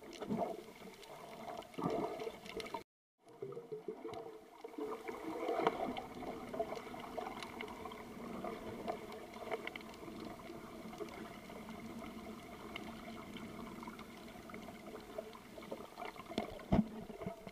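Muffled underwater sloshing and gurgling of moving sea water over a shallow rocky, sandy bottom, heard through a waterproof camera housing, with scattered small clicks. The sound drops out briefly about three seconds in.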